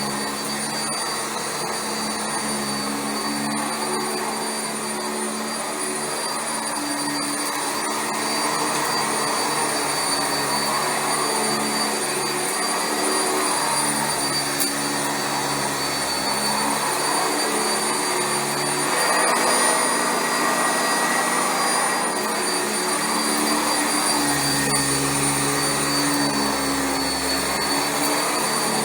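Sanitaire SC679J commercial upright vacuum cleaner running continuously over carpet. A steady high motor whine sits over a lower hum that shifts in pitch now and then.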